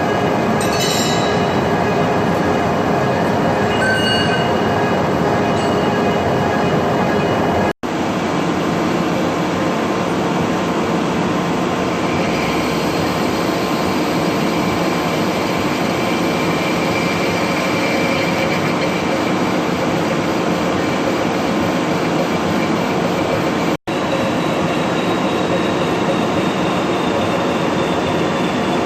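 Metal-turning lathe running continuously while machining a steel bush, with a steady machine noise and high metallic squeals from the cutting tool. The sound cuts out for an instant twice.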